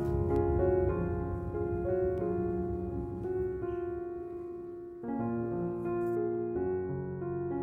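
Background piano music, with single notes and chords changing about every half second to a second.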